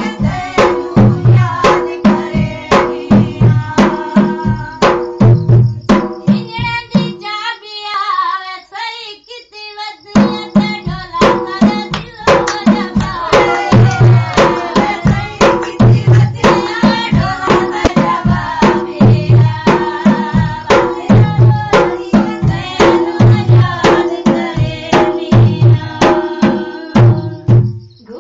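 Dholki hand drum playing a steady folk beat under women singing. About a quarter of the way in, the drum stops for some three seconds, leaving the singing alone, then comes back in.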